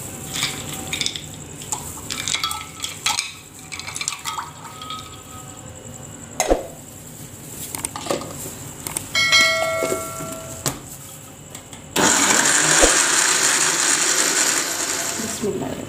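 Ice cubes dropped into a glass blender jar of raw-mango pulp and water, with clinks and knocks. About twelve seconds in the blender motor starts suddenly and runs steadily for a few seconds, crushing the ice into the drink.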